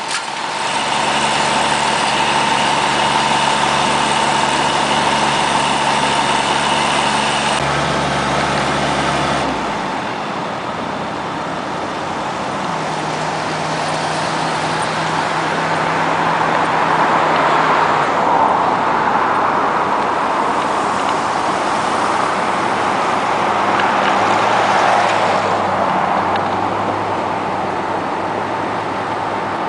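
Fire trucks' engines running steadily, a low hum that shifts in pitch a few times, under a constant rushing noise that swells twice in the second half.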